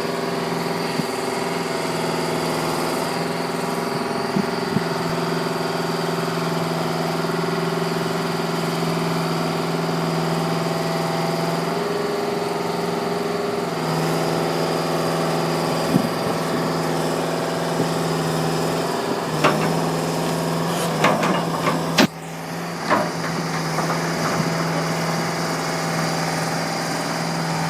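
Link-Belt 5800 excavator's diesel engine running steadily, its note shifting slightly about halfway through. Several sharp knocks and clanks come in the later part, one loud crack among them.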